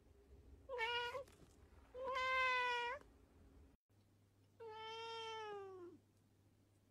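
A cat meowing three times: a short meow about a second in, a louder, longer one a second later, and after a pause a long meow that sinks in pitch toward its end.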